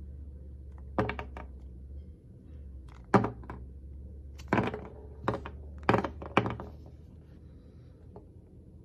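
A knife slicing the rounded nubs off a bar of soap: about eight crisp cuts, three in quick succession about a second in, then single cuts every half second to a second and a half.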